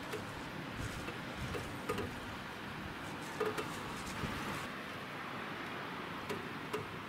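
Steady rain falling, an even hiss with scattered short ticks of drops.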